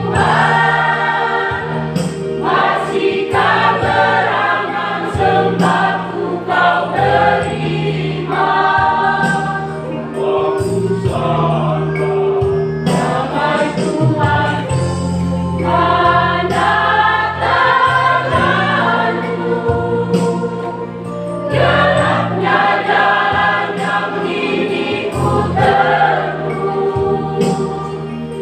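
Church choir of many voices singing a gospel hymn in phrases, over sustained low bass notes.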